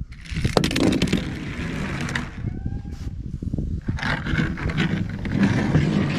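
Small die-cast toy car's plastic wheels rolling and scraping as it is pushed by hand across a wooden bench and a plastic tabletop. Two stretches of gritty rolling noise with small clicks, with a short pause a little after two seconds in.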